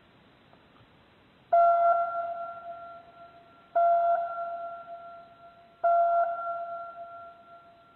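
Music: a single bell-like note struck three times, about two seconds apart, each ringing out and fading before the next.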